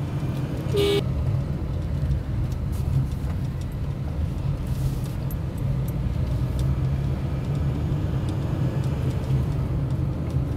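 Car engine and road noise heard from inside the cabin while driving, a steady low hum, with a brief horn toot about a second in.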